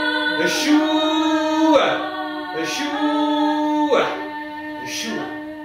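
Unaccompanied improvised singing: voices hold long, steady notes, broken about once a second by short breathy, hissing attacks, and ease off near the end.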